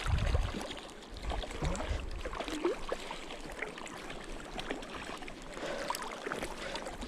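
River water running, with low wind rumble on the microphone, strongest in the first couple of seconds.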